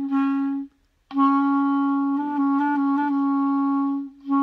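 Clarinet playing a held note, breaking off briefly, then a long note with a few quick flickers between fingerings in the middle and another note starting near the end. This is a test of alternative fingerings on a freshly repadded clarinet: one fingering sounds slightly different, and the repairer will shim a key cork to even them out.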